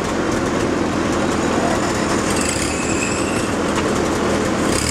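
Ford 8N/9N tractors' four-cylinder flathead engines running at low speed, a steady rattling rumble. A brief high squeal rises over it about two to three seconds in.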